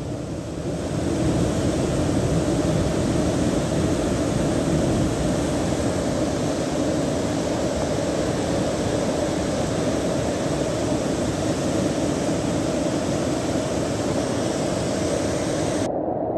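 Muddy floodwater rushing through a swollen stream, a loud steady rush. Just before the end it cuts abruptly to a duller, muffled rush.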